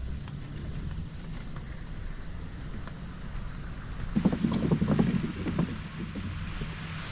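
Low rumble and fast clatter of bicycle wheels rolling over wooden boardwalk planks, turning louder and rattlier for about a second and a half some four seconds in. A rushing hiss comes up at the same point and carries on.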